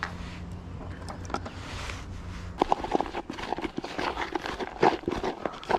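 Hands scooping and squeezing wet, claggy groundbait laced with hemp and casters in a plastic bait tub. The irregular rustling and clicking handling noise starts about halfway through.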